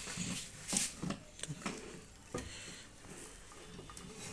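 A few light clicks and knocks from handling the parts of a microwave oven as it is taken apart, most of them in the first two and a half seconds.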